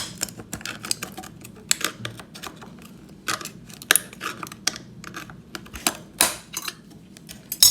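Metal tool clicking and scraping against a soldered-down metal EMI shield can on a circuit board while the can is worked off. Irregular sharp clicks, several louder ones among them, with short scrapes between.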